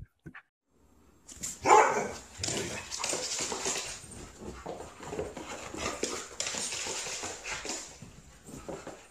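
A dog barking and whining in a long, nearly unbroken run that starts about a second in, loudest at its start.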